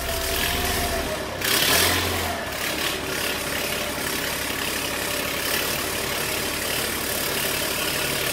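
LMTV military truck's diesel engine just after starting, rising briefly about two seconds in, then idling steadily.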